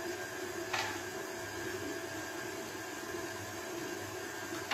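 Electric stand mixer with a flat paddle attachment running steadily on slow, beating butter and sugar. A single short click about a second in.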